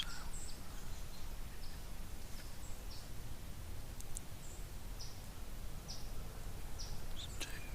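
Small birds giving short, high chirps, one every half second to second, over a steady low background rumble.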